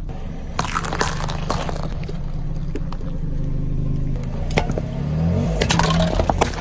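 Car engine running while a tyre rolls over and crushes brittle objects, giving bursts of crunching and crackling. The engine pitch rises in the second half.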